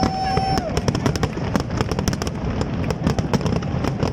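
Aerial fireworks display going off: rapid, irregular crackling and popping from many bursting shells and crackle fountains over a continuous low rumble of booms.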